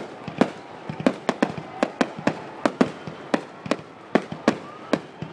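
Fireworks display: a rapid, uneven run of sharp bangs, about three a second.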